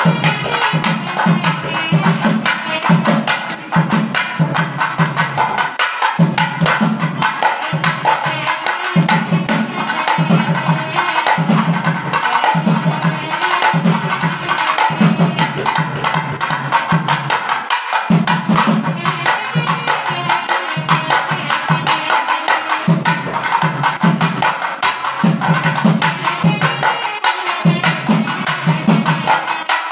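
Traditional Indian ceremonial music with a steady, continuous drum rhythm and hand percussion under a melody.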